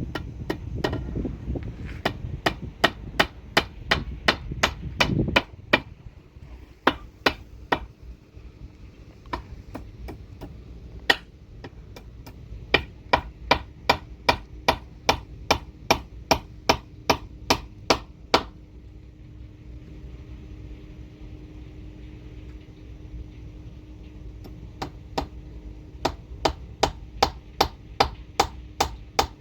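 Hand hammer striking repeatedly, about two blows a second, in runs broken by a short pause and then a longer pause of several seconds. Low wind rumble underlies the first few seconds.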